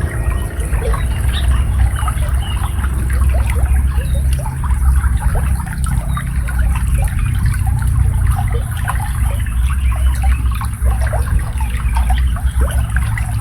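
Clear, shallow water babbling and trickling steadily through a rice field, a dense run of small bubbling plinks over a low steady rush.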